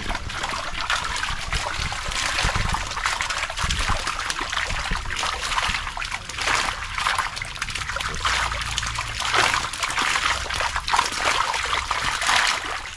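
Water splashing and trickling as a wire-mesh fish trap is lifted and moved in shallow canal water, with water draining back through the mesh in uneven surges.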